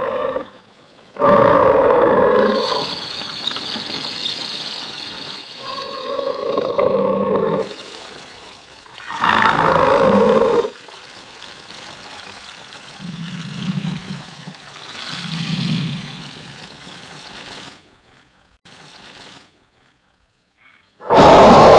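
Alligator roars sound effect: a string of separate deep animal roars a few seconds apart, some loud, some softer and lower, with a short quiet gap near the end before another loud roar starts.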